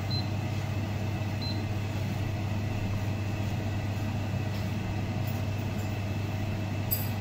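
Pan of milk boiling as lemon juice splits it into curds and whey, heard as an even hiss over a steady low hum.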